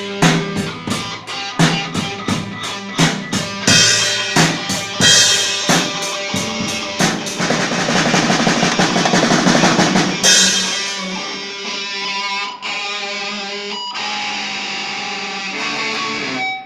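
Music with drum kit and guitar: steady drum beats for the first half, then a dense sustained passage with held chords that cuts off suddenly at the end.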